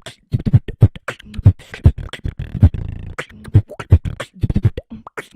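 Human beatboxing: a fast, tight rhythm of deep bass-drum kicks and sharp snare and hi-hat clicks made with the mouth, several strokes a second.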